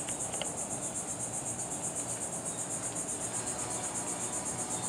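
Steady high-pitched chirring of an insect chorus, with a fast, even pulse.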